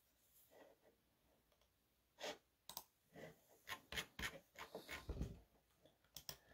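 Faint computer keyboard typing: a run of irregular key clicks from about two seconds in to past five seconds, then one more click near the end.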